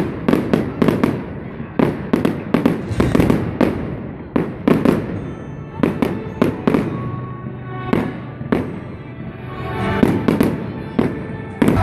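Aerial fireworks shells bursting in quick succession: a rapid run of sharp bangs and crackles that thins out in the middle and picks up again near the end.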